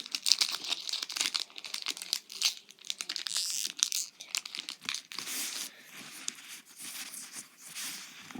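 Foil trading-card booster pack wrapper being torn open and crinkled by hand, an irregular run of crackles and rustling throughout.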